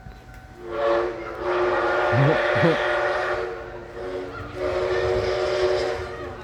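The DT668 steam locomotive's whistle sounding two long blasts of several tones at once: the first lasts about three seconds, the second about a second and a half.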